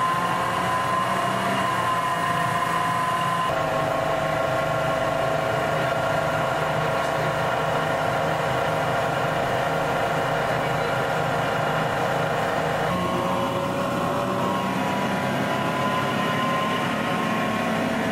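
A bus running down the road, heard from inside the passenger cabin: a steady engine rumble with a whine from the engine and drivetrain. The whine changes pitch suddenly about 3.5 s in and again about 13 s in, then rises slowly.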